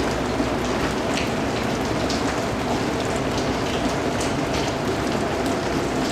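Steady heavy rain falling in an alley, a dense hiss with frequent individual drops and drips hitting hard surfaces close by.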